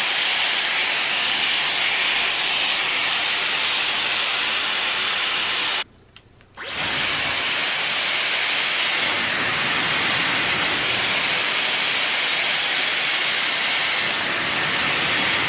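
Dyson Airwrap hair styler running with a curling barrel fitted, giving a steady rush of blown air from its fan. It cuts out abruptly for under a second about six seconds in, then comes back.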